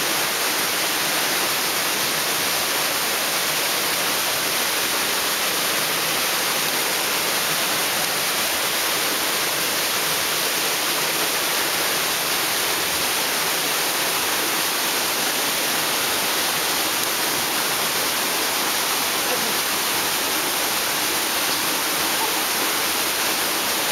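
Shallow rocky river rushing steadily over stones, close by.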